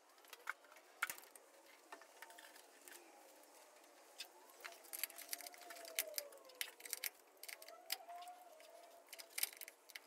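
Faint, scattered clicks and rattles of spark plug wires being handled and pushed onto an HEI distributor cap. A faint wavering tone rises and falls in the background around the middle.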